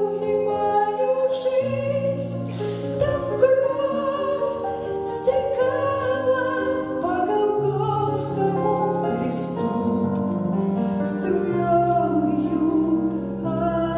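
A song sung by a solo voice over held instrumental accompaniment; the voice glides between sustained notes.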